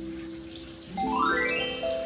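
Background music: soft held notes, then about a second in a quick rising run of bright, bell-like notes.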